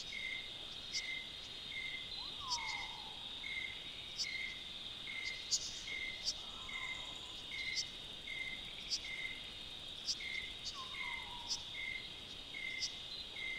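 Night insect chorus of crickets: a steady high trill, with a second caller pulsing a little over once a second and sharp high chirps scattered through it. Two short falling calls stand out, one near the start and one about three quarters of the way through.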